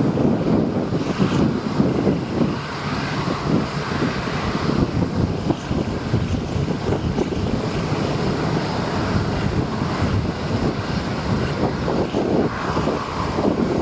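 Steady rumble of a taxiing Boeing 787-9 airliner's jet engines, with wind buffeting the microphone.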